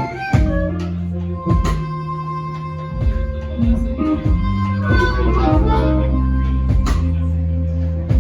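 Live blues band playing a blues in C: guitar runs over sustained bass notes, with sharp drum and cymbal hits every second or so.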